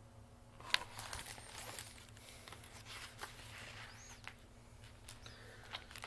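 Picture book being handled and its pages turned: a sharp click about a second in, then faint paper rustling and small clicks.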